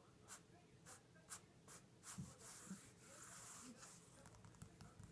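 Faint light taps of fingers on a wooden tabletop, five or six in the first two seconds, followed by about a second of scratchy rubbing.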